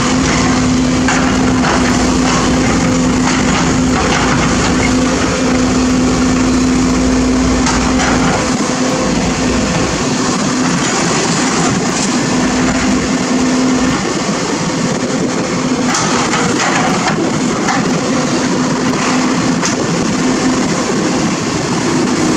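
Sumitomo SH210 hydraulic excavator's diesel engine running steadily with a held hum, the deep rumble easing off about eight seconds in, and scattered knocks and scrapes from the bucket working loose soil.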